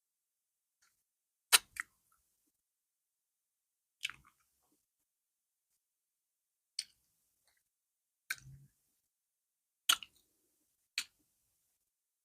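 Close-up eating mouth sounds: sharp, wet lip smacks and clicks while chewing plantain fufu with okra soup, about seven of them a second or two apart.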